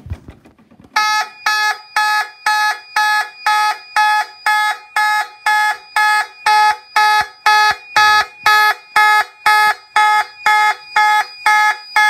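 A fire alarm pull station clicks as it is pulled. About a second later a fire alarm horn starts sounding in march time, in short even blasts about twice a second.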